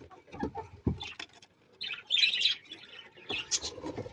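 Budgerigars chattering: irregular bursts of high chirps and warbles, with a few soft thumps in the first second.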